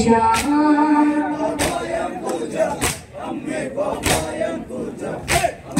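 A boy's noha held on a long sung note through a microphone, giving way about a second and a half in to a group of voices chanting along. Sharp slaps land evenly about every 1.2 seconds, the mourners' matam (chest-beating) keeping time.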